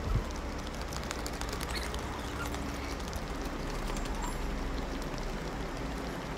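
Wind and handling noise on a phone microphone carried by a running person: a steady low rumble with scattered small clicks and one thump just after the start.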